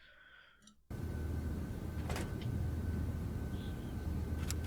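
Near silence for about a second, then a steady low hum and hiss of room or microphone noise with a faint high whine, broken by a single click about two seconds in.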